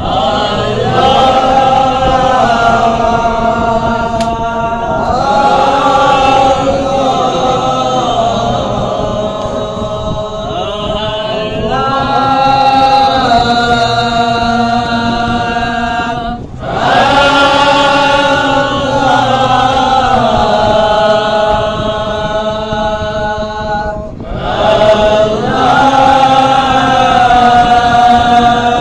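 Group of men chanting a mawlid devotional hymn together in unison, in long sung phrases with short pauses for breath, two of them clear in the second half.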